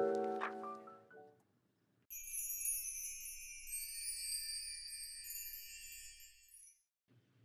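The last notes of a short glockenspiel-like jingle die away in the first second. After a brief gap comes a high, shimmering sparkle sound effect like wind chimes, lasting about four and a half seconds.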